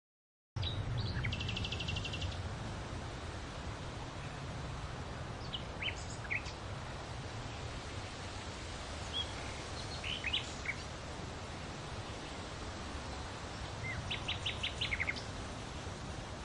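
Outdoor field ambience that cuts in abruptly about half a second in: a steady low rumble with small birds chirping now and then, including a rapid trill near the start and a quick run of chirps near the end.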